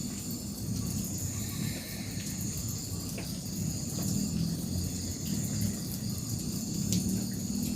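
Crickets and other night insects chirring steadily in a high, pulsing trill, over a low rumble.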